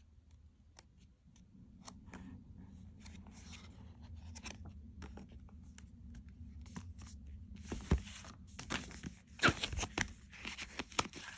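Paper pages of a hardcover book being turned and the book handled, faint rustles and light clicks at first. From about eight seconds in come louder knocks and the crinkling of a plastic sleeve holding an art print.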